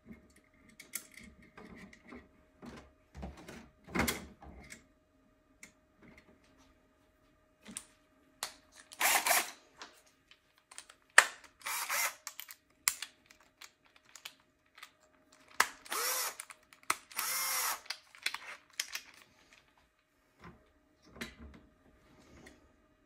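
A hand-held power drill run in three short bursts of about a second each, two of them close together in the second half, between clicks and knocks of the 3D-printed plastic winder and spools being handled.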